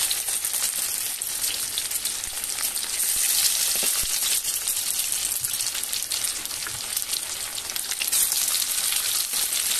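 Cornflour-and-egg-battered chicken pakoras deep-frying in hot refined oil in a steel kadai: steady sizzling hiss with fine crackling. The sizzle swells about eight seconds in as another piece is slipped into the oil.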